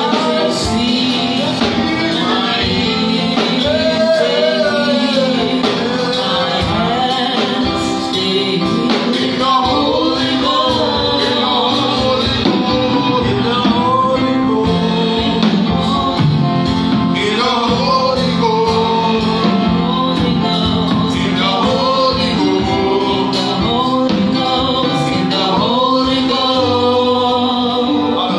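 Gospel worship singing with instrumental accompaniment, a steady, continuous chorus.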